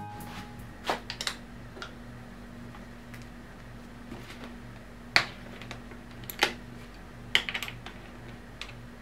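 Small scattered metallic clicks and taps of a hex key and Hepco & Becker hand guard hardware being handled at a motorcycle handlebar end, the sharpest about five seconds in, over a steady low hum.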